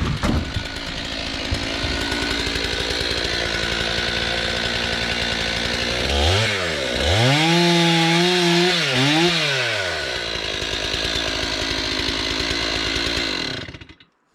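Gasoline chainsaw running at high throttle, cutting in beetle-killed timber. Its engine pitch dips and rises between about six and ten seconds in. The sound cuts off abruptly near the end.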